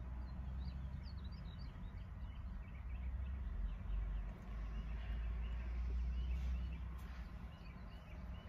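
Small birds chirping outside, many short high chirps overlapping, over a low steady rumble.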